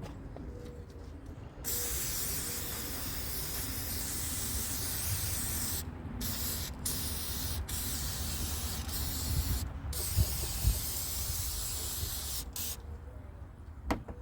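Aerosol can of Fluid Film rust inhibitor spraying onto a hood latch: a steady hiss that starts about a second and a half in and runs for roughly eleven seconds, broken by four brief pauses, then stops. A couple of light knocks follow near the end.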